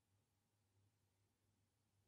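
Near silence: only a faint steady low hum under a little hiss.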